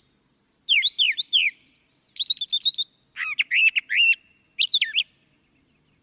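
Brown thrasher singing: four short phrases of quick, varied notes, each a different pattern, with brief pauses between them.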